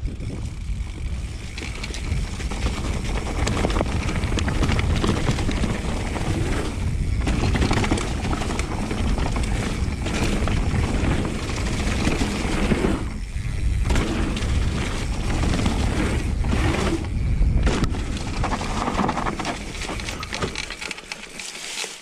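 Mountain bike riding fast down a dirt trail: tyres rumbling over packed dirt and dry leaves, the bike rattling and clattering over bumps, with wind buffeting the microphone. It quietens near the end as the bike slows.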